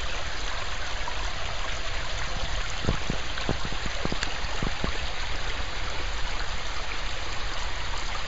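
Shallow rocky creek of ice meltwater running: a steady rush of flowing water.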